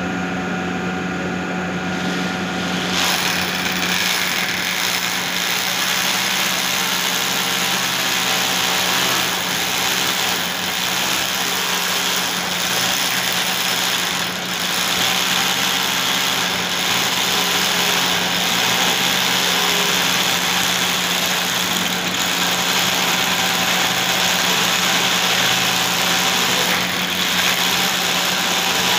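Electric power drill boring into the ceiling to make the hole for a ceiling-fan anchor hook fastener. The drill bites in about three seconds in and then runs steadily, with a few brief changes in its note, over a low steady hum.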